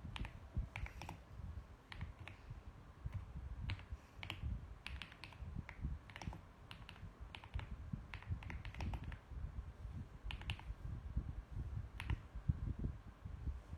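Typing on a mechanical keyboard: irregular runs of key clicks with short pauses between them.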